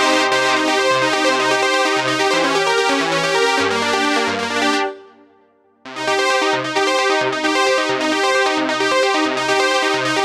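Roland J-6 chord synthesizer playing a factory preset: a rhythmic chord pattern over a moving bass line. It stops about five seconds in and dies away, then a new pattern starts a second later and plays on.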